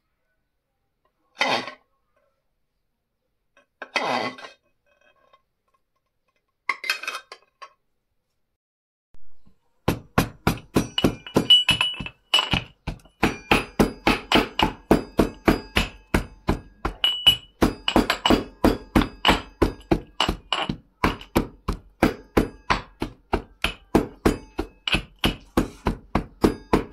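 Steel pestle pounding almonds in a small steel mortar: quick, even strikes, about three a second, each with a short metallic ring, starting about ten seconds in. Before it, three short clatters.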